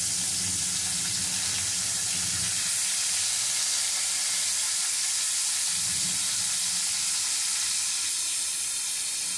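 Turmeric-coated whole bhola fish frying in hot mustard oil in a kadai: a steady sizzle as the fish are laid into the oil one after another.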